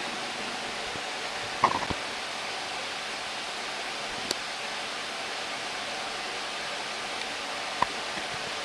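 Steady rushing background noise of a restaurant kitchen, broken by a few short clinks: the loudest about a second and a half in, a faint one near the middle and another near the end.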